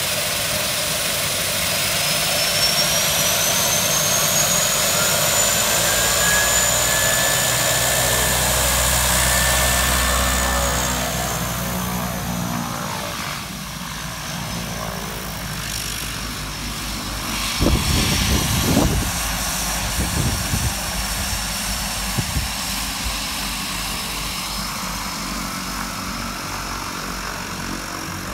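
De Havilland Canada DHC-6 Twin Otter's twin PT6A turboprop engines running with the propellers turning as the plane taxis: a high turbine whine rises over the first few seconds, holds, then falls away about ten seconds in as the aircraft turns and moves off. About two-thirds of the way through, a few loud low thumps of prop wash buffet the microphone.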